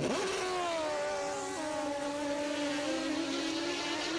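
Top fuel Kawasaki dirt drag motorcycle launching: its engine jumps abruptly to a high-revving note and holds it, the pitch falling slightly over the next few seconds.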